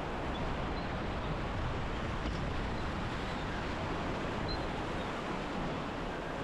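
Whitewater rapid rushing steadily, an even wash of churning river water with no breaks or distinct events.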